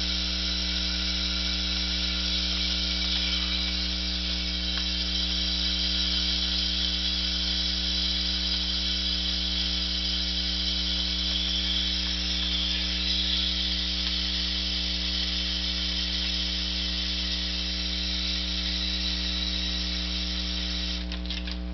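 Can of canned air (a fluorinated hydrocarbon duster), held upside down, spraying its liquid propellant into a plastic bottle of water in a steady hiss that stops shortly before the end, over a steady electrical hum.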